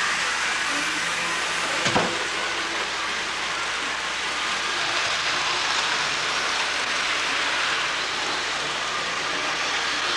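Steady whir and hiss of HO scale model trains running on the layout's track, with a single sharp click about two seconds in.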